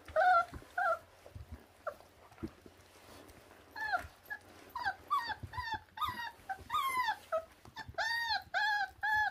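24-day-old puppies whining in short, high-pitched, arching cries over raw meat: a few in the first second, then a string of them from about four seconds in, most closely spaced near the end.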